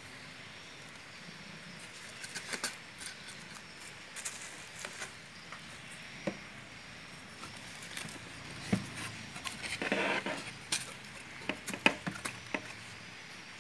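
Light knocks, taps and clicks from a wooden packing crate being handled, scattered and irregular, with a brief scraping rustle about ten seconds in and one sharper knock near the end.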